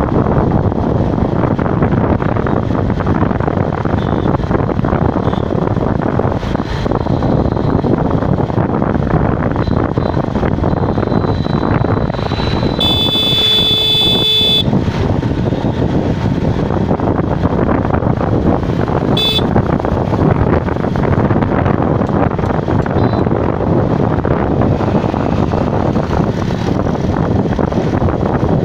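Wind buffeting the microphone and road noise from a moving vehicle on a road. A vehicle horn blares for about two seconds near the middle, and there is a short toot a few seconds later.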